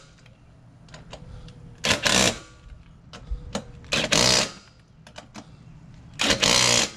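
Hand ratchet wrench run on the lug nuts of a quad's front wheel, tightening them after the new tire is mounted. It gives three quick runs of rapid ratcheting clicks, about two seconds apart, with a few single clicks between.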